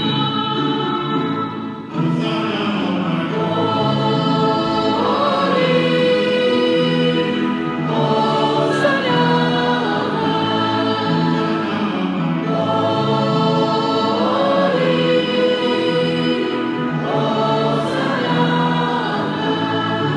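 Church congregation singing a hymn together in long, held phrases.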